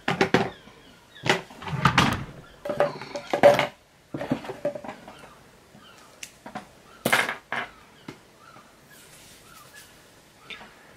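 Irregular rustles, knocks and clicks of close handling near the microphone as hair is gathered and a claw hair clip is undone and refastened, busiest in the first few seconds with one more clatter about seven seconds in.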